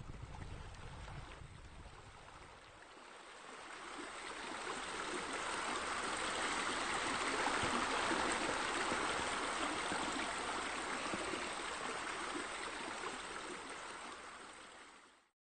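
Running, splashing water. It grows louder over the first several seconds, holds, and fades away near the end.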